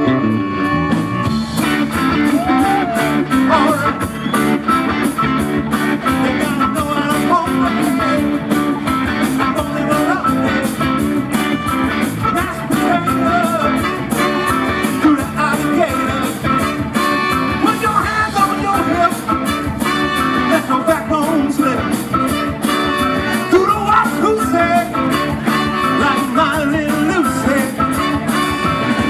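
Live rock band playing with a steady beat, guitar and singing.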